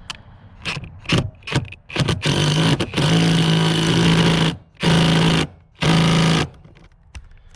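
Power impact wrench driving a seat belt's Torx 50 anchor bolt home: a few short blips, then a long run of about two seconds and two shorter bursts as the bolt tightens.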